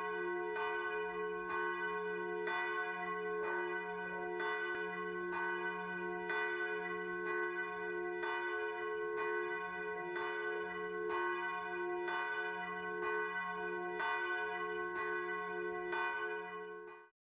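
Church bell tolling steadily, about three strokes every two seconds, each stroke ringing on into the next; it fades out quickly near the end.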